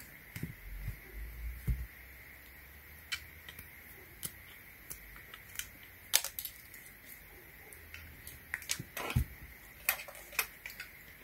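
Small plastic parts and a power adapter's cord being handled, giving scattered light clicks and taps at uneven intervals.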